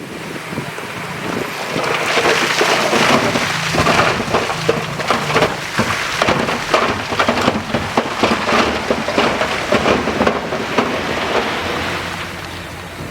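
A load of earth and stones sliding and clattering, a dense rushing noise full of small knocks, over the steady hum of a diesel engine. It swells about two seconds in and eases off near the end.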